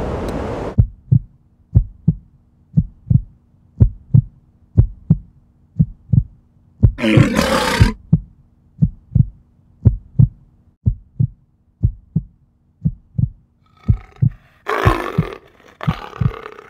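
Sound-effect track of a steady low heartbeat-like thump, about two beats a second. A loud growling roar comes about seven seconds in and a longer one near the end, behind a child's transformation into a monster.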